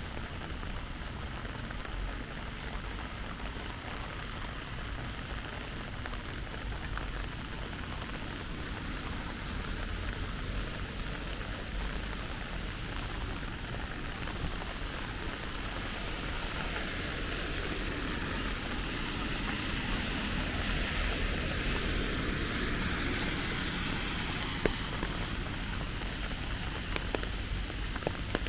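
Steady rain falling, growing somewhat louder and hissier about halfway through, with a few faint drip ticks.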